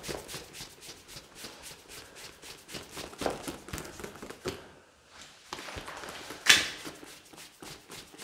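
Irregular rustling with small clicks and taps, like handling noise or footsteps, and one sharp, louder noise about six and a half seconds in.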